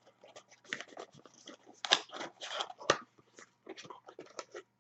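Packaging being handled during unboxing: an irregular run of crackles and clicks, the two sharpest about two and three seconds in.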